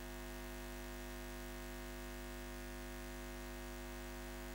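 Quiet, steady electronic drone of several held tones that does not change in pitch or level.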